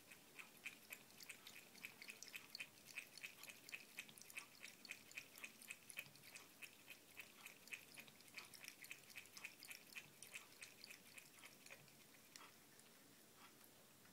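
A cat lapping water from a bucket: faint, soft wet clicks at about three to four a second, thinning out to a few scattered laps near the end.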